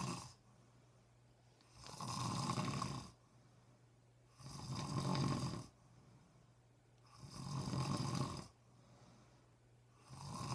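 A man snoring in his sleep: a snore about every two and a half seconds, each lasting over a second, with quiet breathing gaps between.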